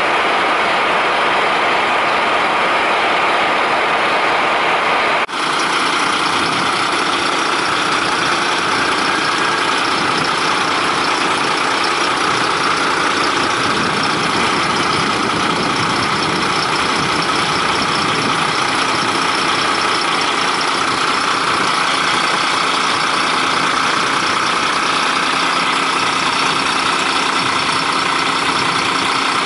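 MAN fire engine's diesel engine idling steadily, with a brief break in the sound about five seconds in.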